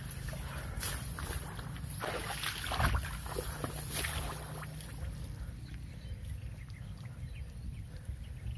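The engine of a rice combine harvester running with a steady low rumble, under irregular short knocks and wet sounds. The machine is bogged down with its tracks sunk in soft, sticky clay mud.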